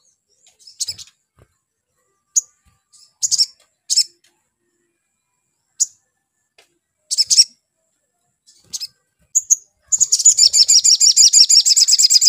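Male olive-backed sunbird giving scattered short, high chirps, then about ten seconds in a fast, high trill of rapidly repeated notes, several a second.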